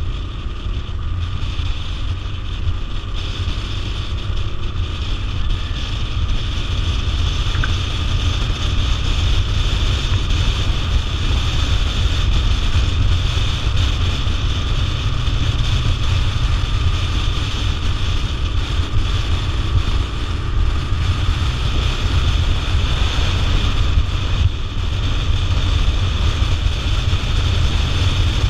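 Motorcycle riding at road speed, heard from the bike itself: heavy wind rush buffeting the microphone over the steady drone of the engine and tyres.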